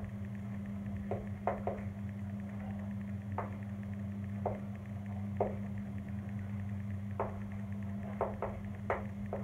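Chalk tapping on a blackboard as words are written: a dozen or so short, sharp taps at uneven intervals, over a steady low hum.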